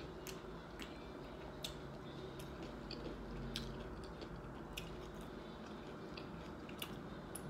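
Faint close-up chewing and lip-smacking from someone eating a taco, with small wet mouth clicks scattered every half second or so over a steady low hiss.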